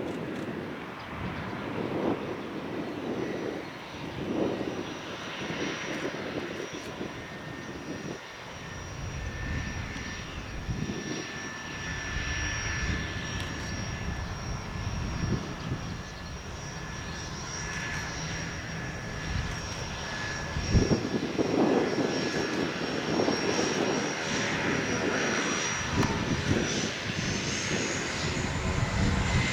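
Pilatus PC-6 Turbo-Porter's Pratt & Whitney PT6A turboprop running, a steady high turbine whine over uneven propeller and airflow rumble. Near the end the whine rises in pitch.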